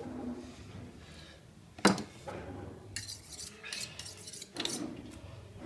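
Metal butcher's knives clinking against each other and the table: one sharp clack about two seconds in, then a run of lighter clinks.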